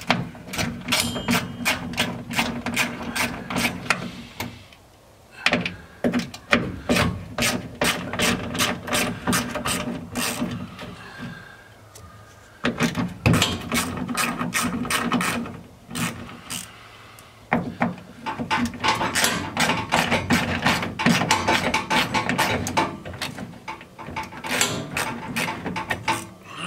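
Hand socket ratchet wrench clicking in quick runs as bolts are backed out, with short pauses between the runs.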